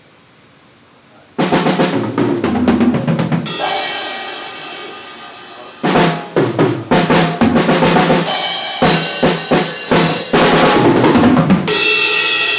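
A drum kit playing: after a second and a half of quiet, quick runs of snare and bass-drum hits, with crash cymbals ringing out and fading between the runs.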